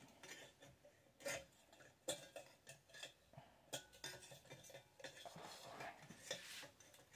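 Faint metal clinks and scrapes from handling a wrench and the metal parts of a stainless steel grinding mill, with a handful of separate sharp clicks.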